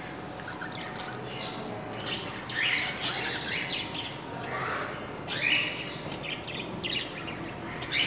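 Budgerigars chirping and chattering in short bursts of quick high calls, livelier from about two seconds in.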